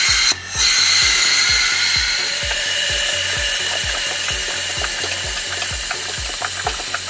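Compressed air hissing steadily as a cylinder leak-down tester pressurises the single cylinder of a 2007 Arctic Cat 650 H1 engine and the air escapes. The owner traces the leak to the intake valves. The hiss cuts out briefly just after it starts and grows softer after about two seconds.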